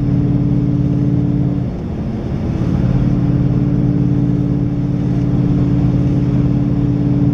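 2015 Mustang GT's 5.0 V8, breathing through Stainless Works long-tube headers, X-pipe and exhaust, heard from inside the cabin while cruising: a steady low exhaust note. The note breaks up and dips briefly about two seconds in, then settles back to the same steady tone.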